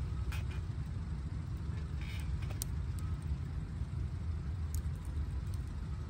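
Log campfire burning with a steady low rumble and a few sharp crackles from the wood.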